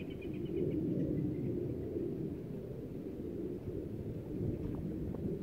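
Wind buffeting the microphone: a low, uneven rumble that swells and falls.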